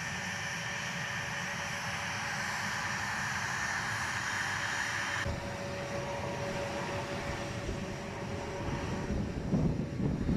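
Twin TF34 turbofan engines of A-10 Thunderbolt II jets running, a steady high whine over a rumble. The sound shifts abruptly about five seconds in, and a low rumble swells near the end.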